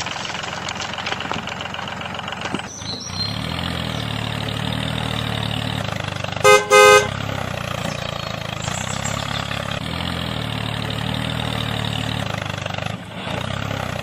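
Tractor engine running steadily, with two short, loud horn honks about halfway through. The engine sound shifts to a deeper drone about three seconds in.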